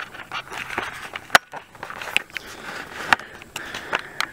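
Footsteps crunching and scraping on dry leaves over dirt ground, with irregular crackling and two sharp clicks, one about a third of the way in and one about three quarters through.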